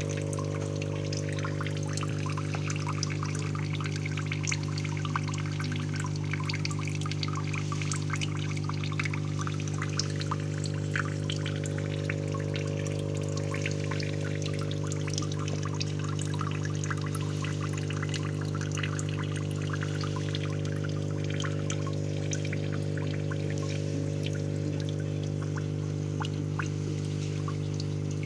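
Water trickling and splashing into a goldfish tank, with many small drips and splashes, over a steady low hum.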